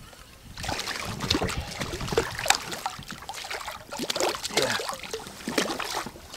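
Small silver bream thrashing and splashing at the water's surface as it is drawn in to the boat's side and grabbed by hand: a string of irregular splashes starting about half a second in.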